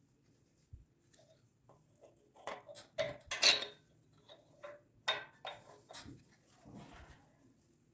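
Light clicks and clatter of generator carburetor parts and gaskets being handled, in two clusters, about two and a half and five seconds in, the loudest about three and a half seconds in.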